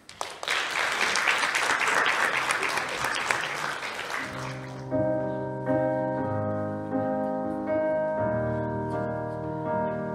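An audience applauds for about four seconds, and the applause fades out. Slow instrumental music with held chords then begins, the chords changing about once a second.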